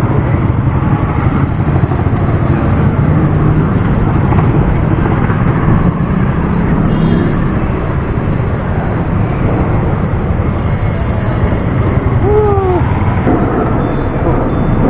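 Steady rushing road noise while riding a bicycle along a city road: wind on the microphone with motor traffic running alongside.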